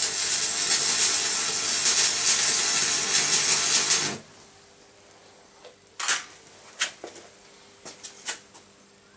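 Electric arc welding: the arc crackles and hisses loudly for about four seconds, then stops suddenly. A few short sharp taps follow.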